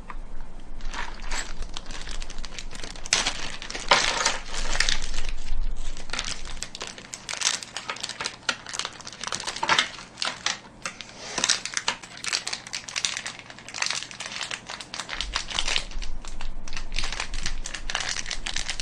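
Hands handling PC-build hardware: a plastic packet of screws rustling and small metal screws clinking, in irregular clicks and rustles.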